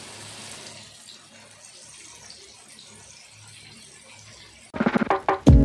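Fish frying in hot oil in a pan, a steady sizzling hiss that eases a little after the first second. Near the end, loud music with sharp strikes cuts in.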